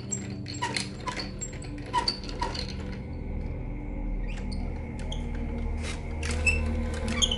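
Wooden scale model of a door-locking mechanism being hand-cranked: its gears and sliding locking bars click and squeak, about two squeaky clicks a second for the first few seconds. After that only a few scattered clicks come, over a low hum.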